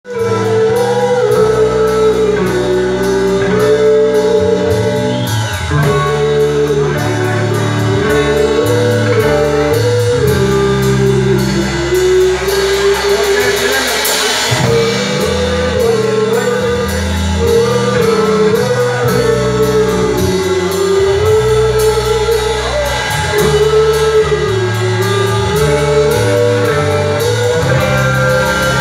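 Live rock band playing: a woman singing a wavering melody over electric guitar and a drum kit.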